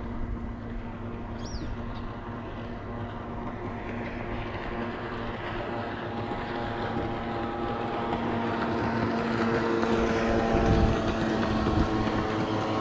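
Jet ski engine running out on the water, a steady motor tone with many overtones that grows louder over the second half.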